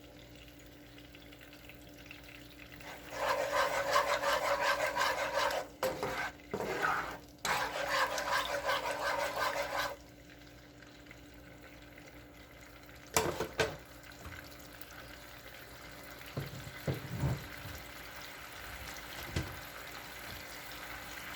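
Garlic, soy and oyster sauce in a skillet over medium heat, stirred and sizzling loudly for about seven seconds with short breaks, then settling to a quieter steady simmer. There is a sharp knock about halfway through and a few soft ones near the end.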